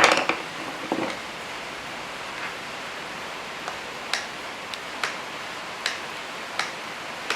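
Small sharp clicks of a hand tool working on the screws of an RC truck's fuel tank mount, one roughly every half to one second, over a steady hiss.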